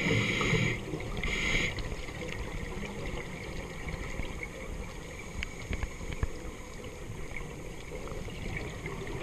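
Underwater ambience picked up by a camera in its housing: a scuba diver's regulator breath hisses twice in the first two seconds, then a steady noisy wash with scattered faint clicks.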